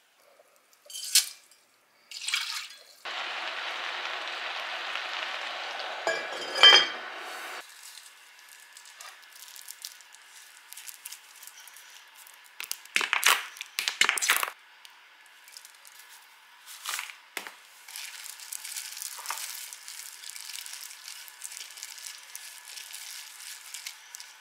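A run of kitchen sounds. First a few clinks, then a steady hiss for about four seconds that cuts off abruptly. Clatter and knocks follow as a sauce bottle is squeezed over a glass bowl, and near the end gloved hands squish and toss shredded cabbage, carrot and raw oysters in the bowl.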